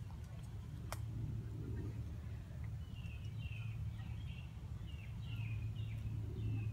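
Outdoor ambience with a steady low rumble, and from about halfway through a run of short, high, falling chirping calls, several a second.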